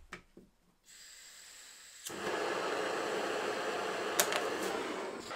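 Gas blowtorch on a screw-on canister: a faint hiss of gas, then it lights about two seconds in and burns with a steady hissing flame. Two sharp clicks come a little later.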